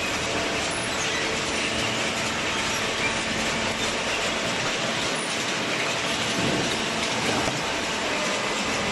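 Industrial cardboard baling machinery running with a steady, dense mechanical clatter.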